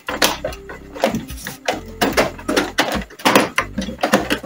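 Irregular plastic knocks and clicks from a Kyocera laser printer's scanner unit being gripped and shifted by hand.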